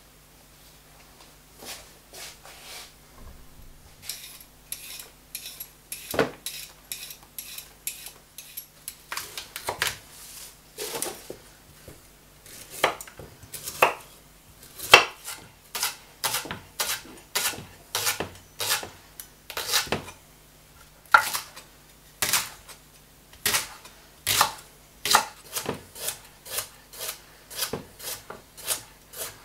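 Kitchen knife chopping soup greens (carrots and leek) on a wooden cutting board. Each cut ends in a sharp knock of the blade on the board. The knocks are sparse and faint at first, then come about one or two a second.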